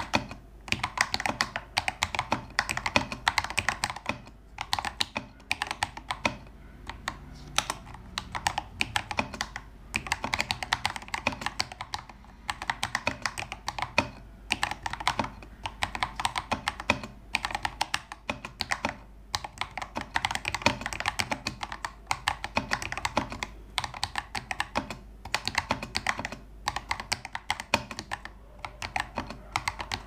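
Typing on a CIY Tester68 mechanical keyboard with lubed Akko Lavender Purple tactile switches and honey milk keycaps: a fast, continuous stream of key clacks with a few short pauses between bursts.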